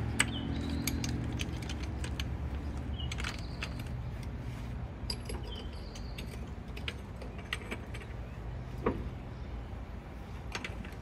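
Scattered light metallic clicks and clinks of metal hardware being handled, over a low steady hum.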